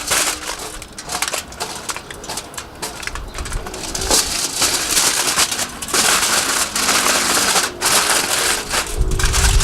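Aluminium foil crinkling and crumpling as it is folded by hand into a parcel around a rack of ribs, in irregular crackles. Wind rumbles on the microphone near the end.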